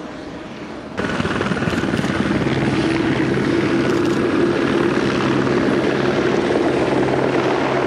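Aircraft engine noise from a light propeller plane and a helicopter on the airfield: a steady drone with a held low hum, starting abruptly about a second in.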